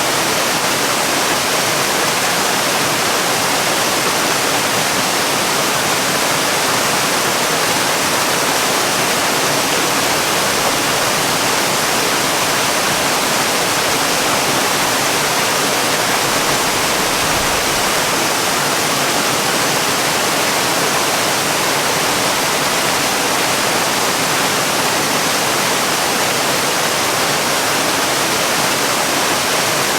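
Waterfall: a steady, unbroken rush of falling water, an even hiss strongest in the upper range.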